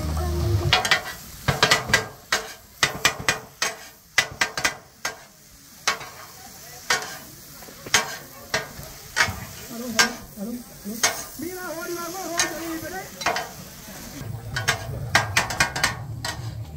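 Metal spatulas clanking and scraping on a flat-top griddle as kottu roti is chopped and tossed, with the food sizzling. The strikes come in quick, irregular runs.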